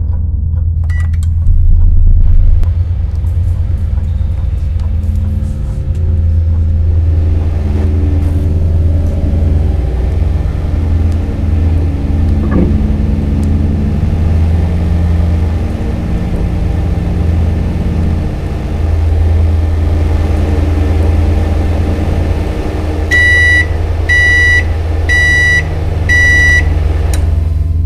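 Microwave oven with a steady low electrical hum, then four evenly spaced beeps about a second apart near the end as its timer finishes. A louder low swell comes about two seconds in.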